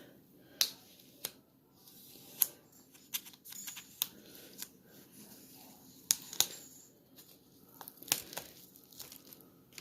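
Knife cutting and tearing the tough plastic film on a package of raw chicken thighs: irregular sharp crackles and clicks of plastic.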